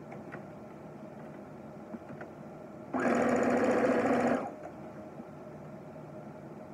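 Electric sewing machine stitching a seam through layered fabric. It starts sharply about three seconds in, runs steadily for about a second and a half, then stops. Before and after are only a few faint clicks over a low room hum.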